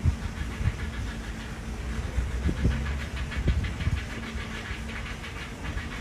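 Outdoor ambience: an uneven low rumble, like wind buffeting the microphone, over a steady low hum.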